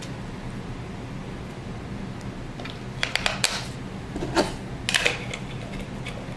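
AA batteries being pressed into the plastic battery compartment in the base of a motorized phone mount: a quick run of sharp clicks about three seconds in, then a couple more clicks and rattles around four and a half and five seconds. A steady low hum runs underneath.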